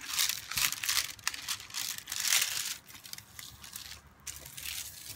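Crinkling of the clear plastic film on a diamond painting canvas as the canvas is handled and smoothed flat. The rustling is busiest in the first half, then thins to a few soft crackles.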